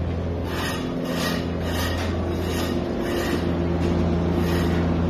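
A steady low machine hum of construction-site machinery. Over it come rhythmic scuffs of footsteps on gritty concrete, about one every two-thirds of a second.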